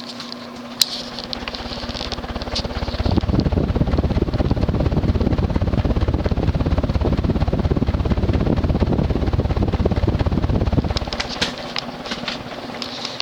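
Cast-iron spinner motor of a Mistralaire (TAT) ceiling fan running at full speed with a steady hum. From about three seconds in, a heavy low rumble swells up, holds, and fades away shortly before the end.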